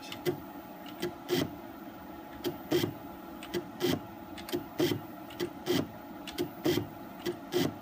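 Stepper motor on an X2 CNC mill's X axis making short jog moves: a brief buzz about once a second, some in quick pairs. Each is a small step of the table, the kind used for checking backlash against a dial indicator.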